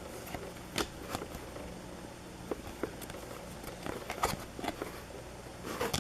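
Baseball card packs being handled: scattered light clicks and crinkly rustles of pack wrappers and cards being flipped through by hand.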